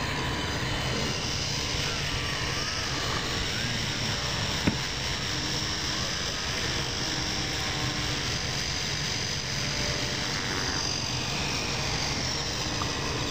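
Electric scale RC helicopter running: its motor and rotor give a steady whir with a high whine as it lifts off from the grass and flies. A single short click about four and a half seconds in.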